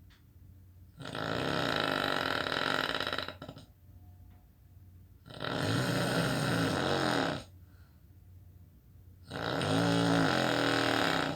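A person snoring: three long, rough snores about four seconds apart, each lasting about two seconds, with quiet gaps between.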